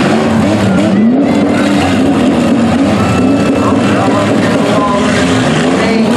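Several demolition derby vans' and cars' engines revving up and down over and over as they push and ram one another.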